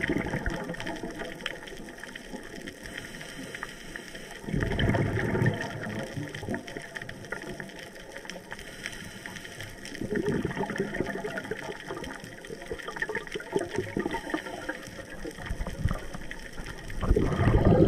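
Underwater recording of a scuba diver's breathing: loud gurgling rushes of exhaled bubbles from the regulator come roughly every six seconds, with a quieter water hiss between them.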